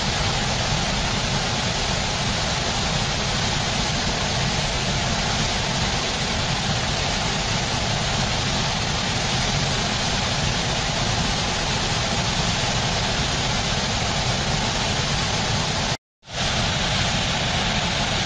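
Fast river rapids and cascading whitewater rushing, a steady even noise that drops out for a split second near the end.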